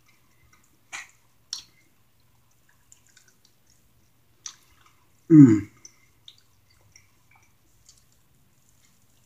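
Close-up eating sounds while pulling meat off a chicken wing: a few wet mouth clicks and smacks. About five seconds in comes the loudest sound, a brief vocal "mm" falling in pitch.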